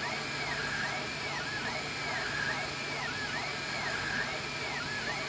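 Anycubic Kossel delta 3D printer's stepper motors whining in pitch arcs that rise and fall evenly, a little more than one a second, as the print head traces continuous circles around the hollow rod's thick shell. A steady low hum runs underneath.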